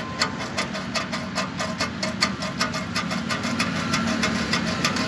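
An engine idling steadily: an even, rapid ticking of about seven beats a second over a low hum.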